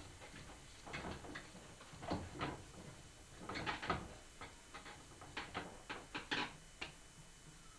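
Irregular soft knocks and rubbing of hands pressing and patting clay coils onto a wooden potter's wheel head, in several small clusters.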